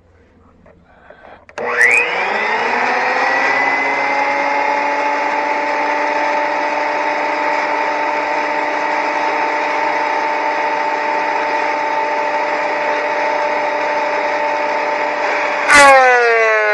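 Delta 22-540 12-inch portable planer switched on: its motor and cutterhead spin up with a rising whine within half a second and run at a steady high-pitched whine. Near the end a sharp loud crack, and the whine begins to fall in pitch.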